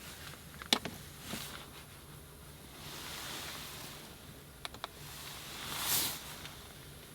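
Soft rustling that swells twice, with a few light clicks and taps in between: small items and bedding being handled.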